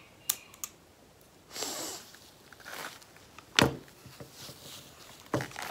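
Small objects being handled at a table: two light clicks near the start, brief rustles, and a sharp knock about halfway through. Near the end a hand rummages in a red cloth gift sack, rustling.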